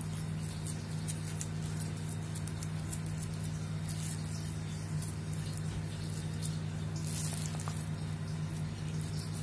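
A plastic spoon scraping and squishing soft mashed tofu mixture against a stainless steel bowl, making scattered light scratches and clicks. A steady low hum runs under it.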